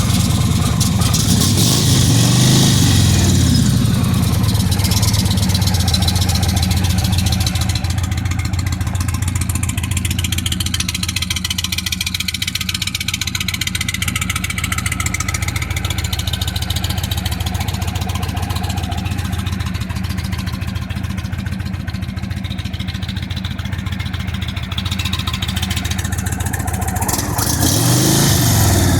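2019 Indian Springfield's V-twin engine, fitted with a Rinehart exhaust, idling just after being started. The engine is revved up and back down about two seconds in, and again near the end.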